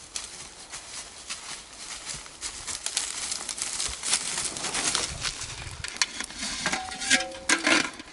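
A horse walking over dry grass and twigs, hooves rustling and crunching, with many small clinks from the rider's plate armour and the harness.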